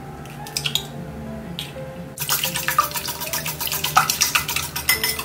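An egg cracked on the rim of a Korean granite bowl, a few light clicks, then from about two seconds in a wire whisk beating eggs fast in the bowl, a rapid even run of scraping taps.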